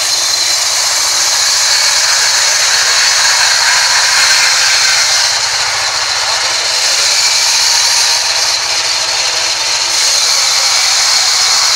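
Large vertical band saw running steadily with its blade in the cut, ripping lengthwise through a rain tree log. It gives a steady high-pitched whine over a loud hiss of cutting.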